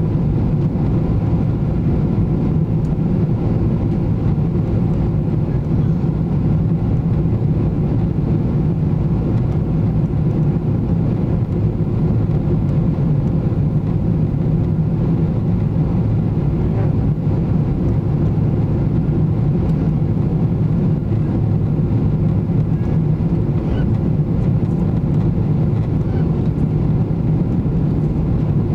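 Steady low drone inside the cabin of a Boeing 777-300ER on final approach, its GE90 engines and the airflow over the fuselage heard through the cabin wall.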